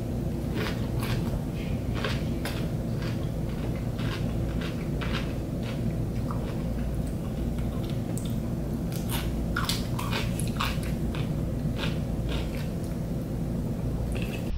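Close-up crunching and chewing of cucumber pieces: irregular crisp crunches, thickest around the middle, over a steady low hum.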